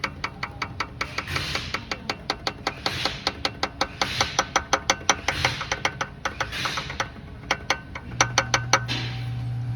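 Rapid, uneven metallic clacking, several knocks a second, from a connecting rod being worked back and forth on the crankshaft of a 6.6-litre V8 with the oil pan off. The rod bearing is gone, so the rod knocks loose against its journal. A steady low hum comes in near the end.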